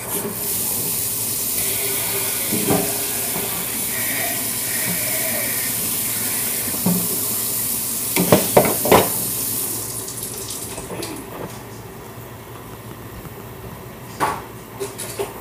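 Kitchen tap running into a sink for about ten seconds, then shut off. There are a few quick clatters, like dishes, near the end of the running water.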